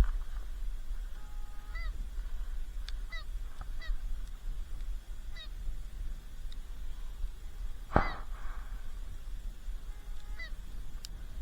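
Geese honking in short, repeated calls every second or so over a low wind rumble on the microphone. About eight seconds in, a single sharp bang cuts through, the loudest sound in the stretch.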